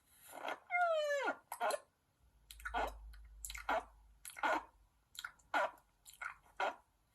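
Cartoon gulp sound effect played over and over: a short falling tone about a second in, then a string of short gulps about half a second apart.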